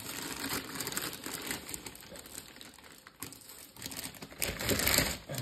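Clear plastic wrapping crinkling as a packaged clothes iron is lifted and handled, with a louder burst of rustling near the end.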